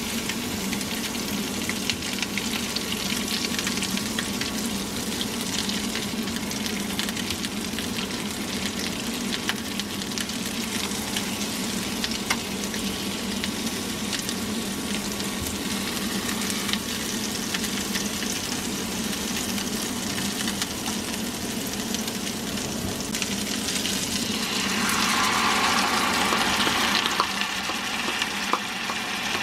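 Cheese-filled hamburger patties sizzling in oil in a nonstick frying pan, with small crackles and the odd touch of a spatula. About 25 seconds in the sizzle grows louder and hissier as tomato sauce is poured into the hot pan.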